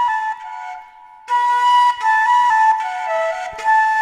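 Solo flute melody of held notes stepping between nearby pitches. The tune drops softer and lower about half a second in, then comes back louder just over a second in.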